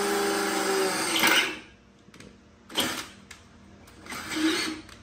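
Cordless drill motor whining steadily while drilling a hole in a sheet-metal battery box, stopping abruptly about a second and a half in. A few short clatters follow as the metal box is handled.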